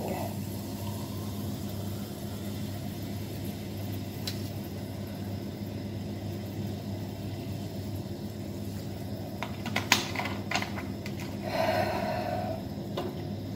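Soda water poured from a plastic bottle into a glass and fizzing, over a steady low hum. A few sharp clicks about ten seconds in, and a short rustle about two seconds later as the plastic bottle is handled.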